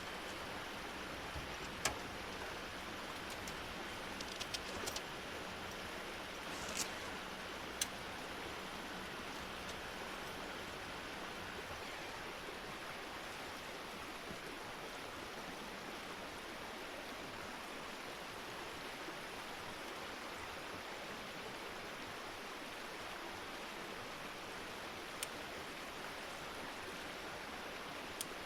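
A river running steadily, an even rushing of flowing water, with a few short sharp clicks over it, mostly in the first eight seconds and once or twice near the end.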